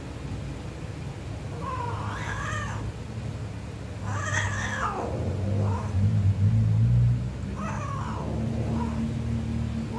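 Persian cats mating: drawn-out, wavering yowls, three long ones about two, four and eight seconds in, with a couple of shorter cries. A steady low rumble runs underneath and is loudest around six to seven seconds in.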